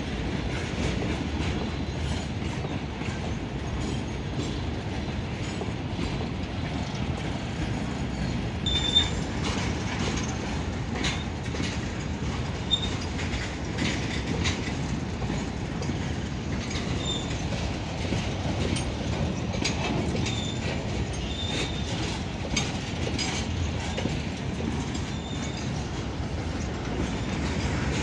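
Long freight train of covered goods wagons rolling past: a steady low rumble with the wheels clicking over rail joints. Brief high-pitched wheel squeals come now and then through the middle of the pass.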